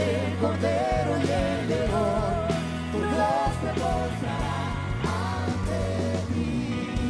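Live church worship band playing, with drums, bass and a wavering sung melody. Just before the end the drums drop out and the band settles onto sustained chords.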